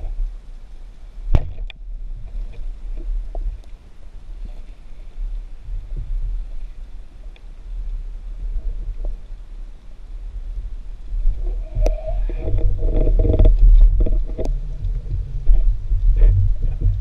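Underwater sound heard through a camera housing: a steady low rumble of moving water with scattered sharp clicks and knocks. It grows louder and busier about two-thirds of the way through.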